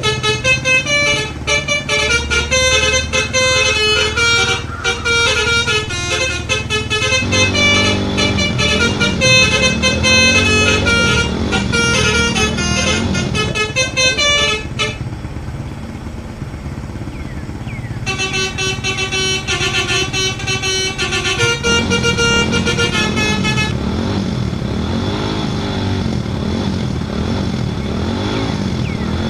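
Telolet horn playing a multi-note tune, its notes stepping up and down over and over; it stops about 15 seconds in and plays again for a few seconds after a short gap. Underneath, the Suzuki Carry's motor revs up and down, and runs on alone near the end.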